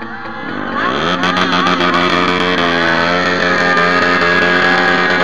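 Superbike engine revving up about a second in and then held at high, steady revs for a burnout.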